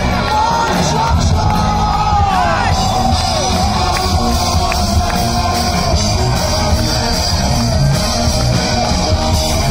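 Rock band playing live at full volume, with a long, wavering held melody line over the drums and bass, and the crowd shouting along.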